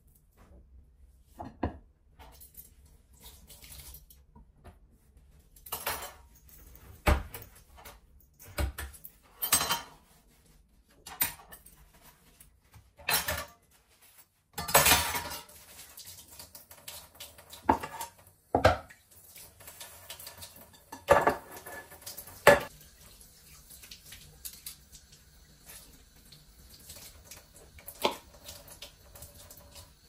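Kitchenware being handled: a string of separate clatters, knocks and clinks of metal utensils and a frying pan with a glass lid being picked up and set down, with a tap running into the sink through the second half.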